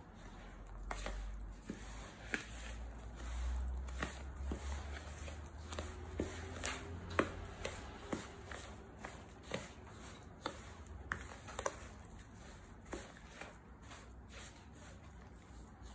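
Metal spoon stirring and scraping a damp, crumbly dough mixture in a ceramic bowl, with irregular light clicks and taps of the spoon against the bowl.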